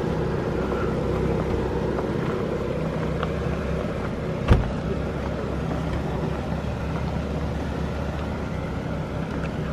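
Jeep engine running steadily at low revs, with one sharp thump about halfway through.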